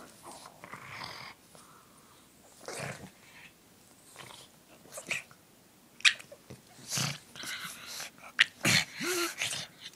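Two pugs play-fighting at close range: irregular short, noisy breaths and snuffles, a sharp one about six seconds in and more of them packed together near the end, with a brief whine shortly before the end.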